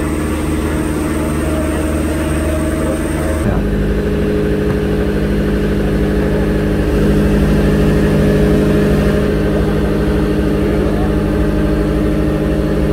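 Water taxi's engine running at a steady drone while the boat cruises, heard from on board. The engine note shifts abruptly about three and a half seconds in.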